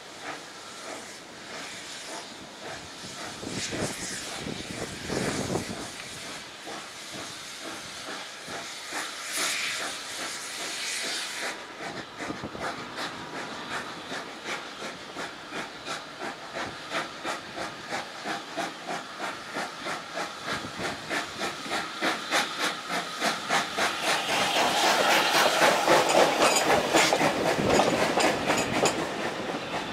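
Steam hissing around a 0-6-0 saddle tank steam locomotive as it stands ready to start. About twelve seconds in, its exhaust begins chuffing in a regular beat of about two a second that quickens and grows louder as the engine pulls its coaches away.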